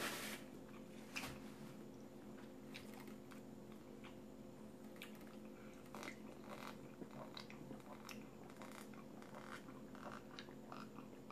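Quiet eating and drinking sounds: faint chewing and gulps from a glass of iced punch, with scattered small clicks, over a low steady hum.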